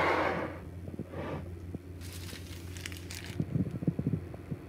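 Plastic food packaging crinkling and rustling as it is handled, in short spells, followed by a few light knocks and taps on a countertop.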